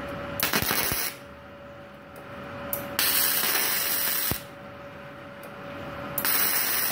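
Gasless flux-core MIG welding of thin hollow steel with 0.8 mm flux-core wire: the arc crackles and sputters in three short bursts of about one to one and a half seconds each. The current is still too high for the thin tube.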